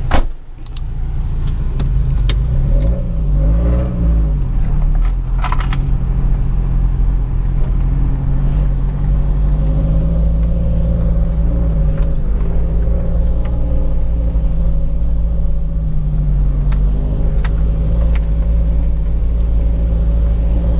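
SUV engine running steadily as it drives slowly over a bumpy dirt track, heard from inside the cabin. The drone rises and falls a little with the throttle. There are a few knocks and rattles from the bumps: a sharp one right at the start and others about 2 and 5 seconds in.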